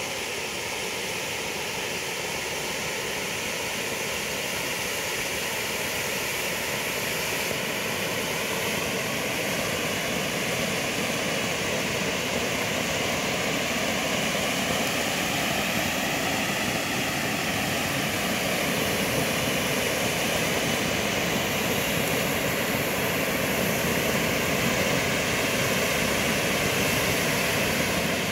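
Two Bugano/Zink category F3 firework fountains, Helvetica and Azzuro, burning side by side with a steady, loud rushing hiss of spraying sparks that builds slightly over the middle.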